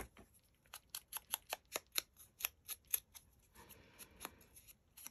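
Quick, light clicks, several a second, from small paper cutouts and small scissors being handled on a craft cutting mat, with a brief soft paper rustle a little after three and a half seconds in.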